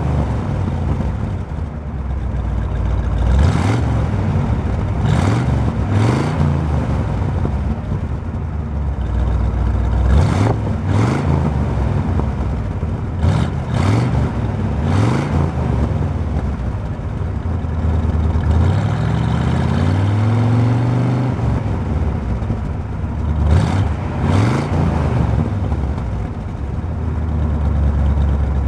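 1957 Ford Thunderbird's V8 heard at its dual exhausts, idling and revved in a string of short blips, the pitch rising and falling each time.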